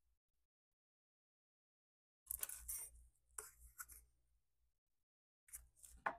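Faint scratching and light clicks of small model-kit parts and a glue applicator being handled while glue is put on, in a few short spells starting about two seconds in.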